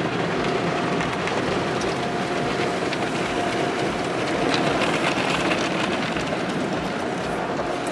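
An automatic car wash's water spray and washing hitting the car's windshield and body, heard from inside the cabin: a steady rushing hiss like heavy rain.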